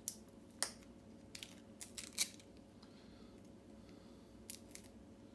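Scattered sharp clicks and light handling noise, about a dozen at irregular intervals, from a key and a Yale mortise lock cylinder being handled.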